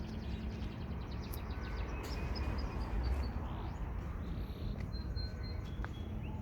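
Small birds chirping in quick runs of short high notes, over a steady low rumble.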